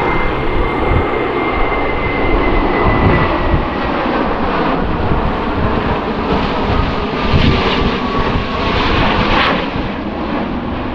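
Jet noise from an Airbus A350 XWB's Rolls-Royce Trent XWB turbofans as the airliner passes overhead in a banking turn: a loud, steady rush with a thin high whine that slowly falls in pitch.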